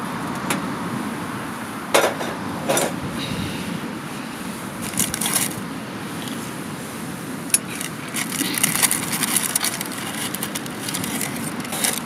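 Cast-iron mini Dutch oven being opened and handled: sharp metal knocks and clinks of the lid and pot, two of them about two seconds in, then a dense run of crackling and rustling near the end as the baked loaf is lifted out of the pot, over a steady low hiss.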